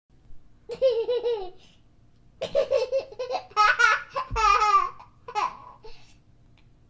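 A young child laughing in high-pitched, bubbling fits: a short burst about a second in, then a longer, stronger run of giggling laughter from about two and a half seconds, with a last short laugh near the end.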